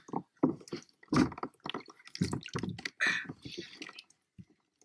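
Water splashing and dripping as a landing net scoops a caught flathead and is lifted out of the water beside a kayak, in short irregular splashes that thin out near the end.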